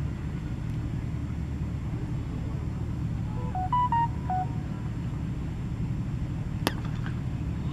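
A cricket bat strikes the ball with a single sharp crack about two-thirds of the way in, followed by a few faint clicks. Before it comes a short run of electronic beeps at several different pitches, like phone keypad tones, and a steady low rumble lies under everything.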